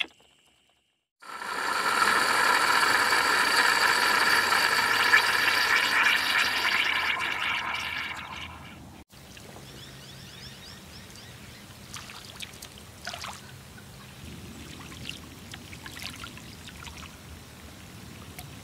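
A loud chorus of insects trilling on many steady high notes, fading out after about eight seconds. Then faint scattered pattering and ticks of a school of small bait fish flicking the water surface, which sounds like light rain.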